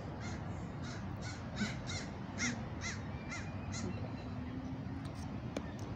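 A crow cawing in a series of short calls, about two a second, which stop about four seconds in.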